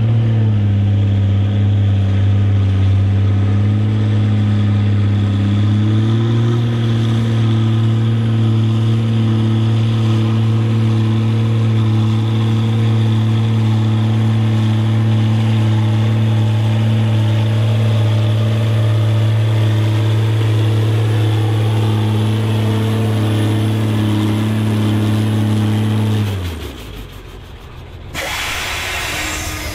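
Diesel pulling tractor's engine running at high, steady revs under load during a pull, stepping up a little in pitch about six seconds in. Near the end the revs fall away and the engine note drops, followed by a short burst of loud hiss.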